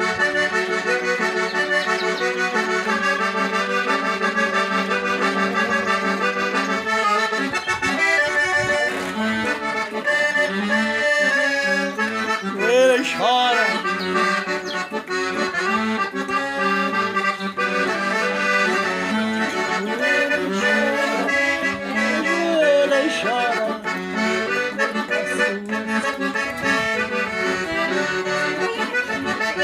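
Accordion (sanfona) playing a tune, with melody notes over sustained chords without a break.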